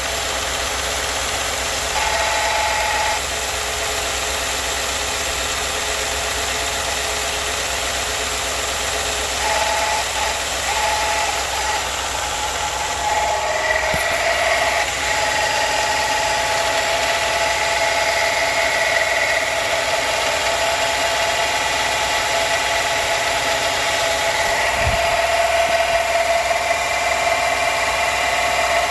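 2016 Ford F-150 engine running steadily, with a whine that comes and goes over it and grows stronger about halfway through; the noise is one the owner cannot identify.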